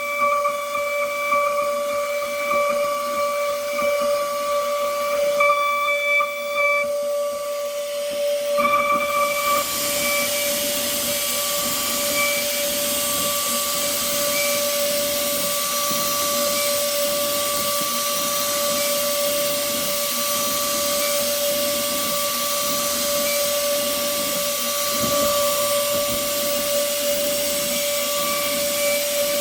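CNC machine spindle running with a steady high whine while machining padauk wood keycaps. About eight seconds in, a loud steady hiss joins it and continues.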